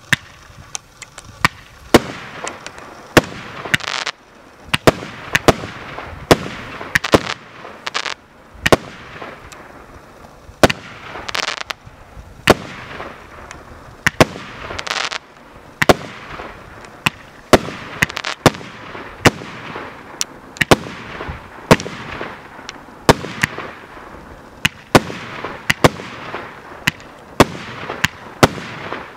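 Joker Fireworks JFC19 "Wow!" multi-shot firework cake firing shot after shot: a sharp bang about once a second, some followed by a longer crackling hiss as the shells break.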